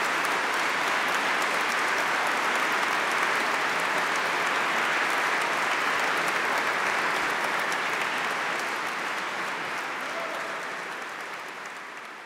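Concert audience applauding steadily, the applause fading out gradually over the last few seconds.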